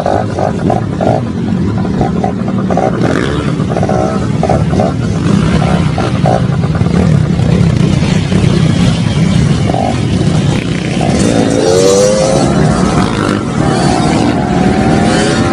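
Several motorcycles running along together, engines revving, with the pitch rising twice in the second half.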